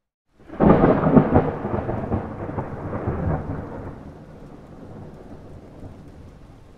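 A thunder clap: a sudden crackling crack about half a second in, then a rumble that fades slowly over the next few seconds.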